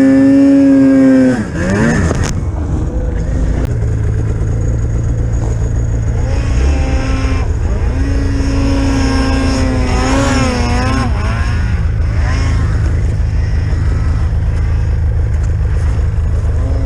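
Polaris Pro RMK 800 snowmobile's two-stroke twin engine running under throttle: pitch held high at the start, dropping off about two seconds in, then a steady low running with another rise and fall of pitch around eight to eleven seconds in.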